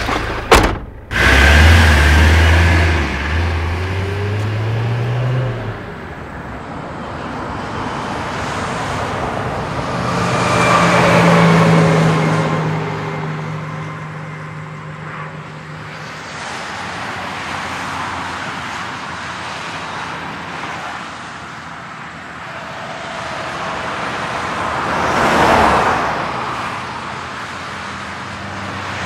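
A van engine revving and rising in pitch for a few seconds as it pulls away, then steady motorway traffic with vehicles passing by, one swelling about ten seconds in and a louder one near the end.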